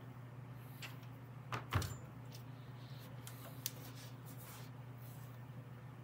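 A few light knocks and clunks of metal mower transmission parts being handled, the loudest about two seconds in, over a steady low hum.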